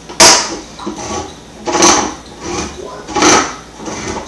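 Repeated clunks and clatter of kitchen items being handled on a counter, a loud knock roughly every one and a half seconds with softer knocks between.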